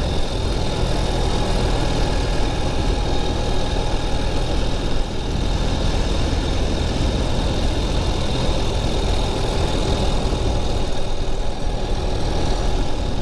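The air-cooled boxer twin of a 2021 Ural Gear Up sidecar motorcycle running steadily while riding along a road, with an even rush of road and wind noise over the low engine rumble.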